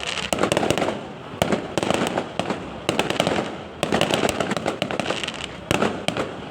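Fireworks going off in rapid succession: a dense run of sharp cracks and bangs over continuous crackling.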